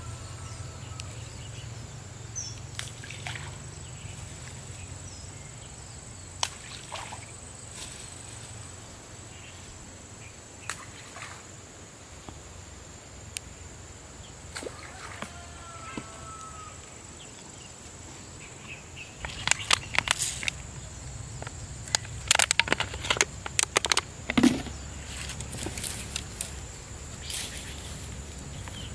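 Outdoor ambience: a steady high-pitched insect drone with a few short bird calls, and bursts of sharp clicks and rustling in the second half.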